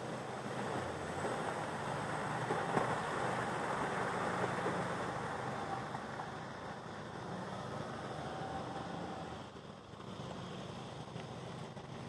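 A four-wheel drive's engine pulling up out of a shallow river crossing and driving away, fading near the end, over the steady rush of the shallow river running over stones.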